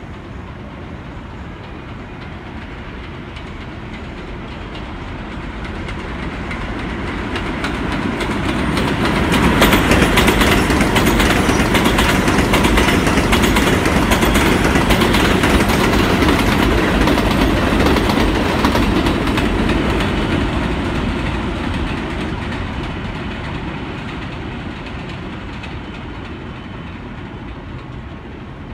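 New York City subway train approaching on an elevated line, passing close by with its wheels clattering over the rail joints, then fading away. It builds gradually, is loudest for about ten seconds in the middle, and dies down slowly.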